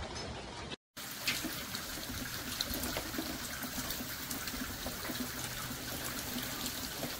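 Water trickling and dribbling down a rain chain's cups, a steady splashing with scattered small drips. It cuts out for a moment just before the one-second mark, then carries on as before.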